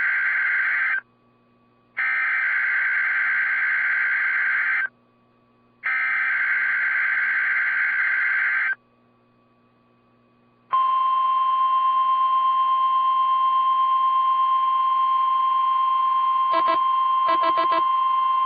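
NOAA Weather Radio broadcast alert signal: the end of one burst and two more bursts of the warbling digital SAME header, about a second apart, then the steady 1050 Hz warning alarm tone held for about nine seconds, opening a weekly test of the station. A few brief clicks come near the end of the tone.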